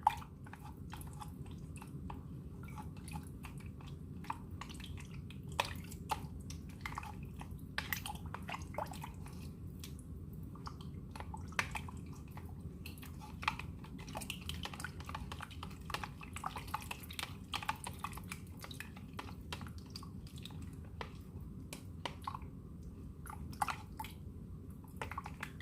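Roasted chili paste being stirred into milk in a jug, with irregular small clicks and taps of the stirring utensil against the jug over a steady low hum.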